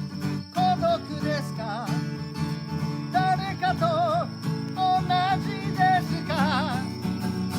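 Live acoustic music: guitar accompaniment under a melody line with a strong vibrato, in short phrases about a second long.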